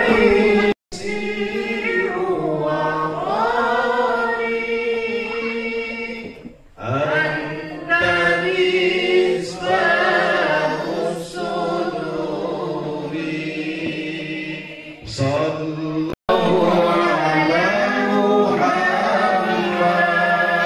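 A group of voices singing Islamic salawat without instruments, in long held notes with a sliding melody. The singing cuts out abruptly twice, about a second in and again about three-quarters of the way through.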